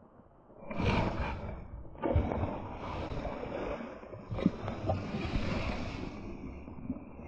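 A hooked bass thrashing and splashing at the water's surface beside a kayak, with clothing rustling against the microphone; it starts suddenly about a second in, with sharp splashes near two and four and a half seconds.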